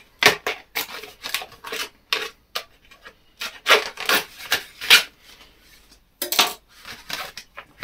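A knife cutting and scraping through the plastic blister and card backing of a dough cutter's packaging, in a run of irregular scratchy strokes and crackles, loudest around the middle.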